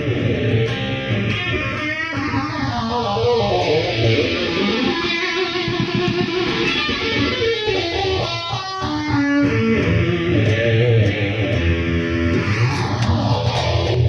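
Electric guitar played at volume through an amplifier, continuous without breaks. Its tone sweeps slowly up and down, about once every ten seconds.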